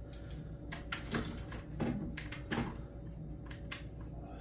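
Light, irregular clicks and knocks of a metal deadbolt latch being test-fitted into a chiselled mortise in a wooden door edge.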